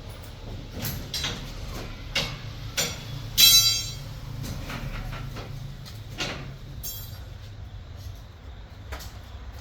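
Sharp metal knocks and clicks, with one loud ringing metal clank about three and a half seconds in, over a steady low mechanical hum.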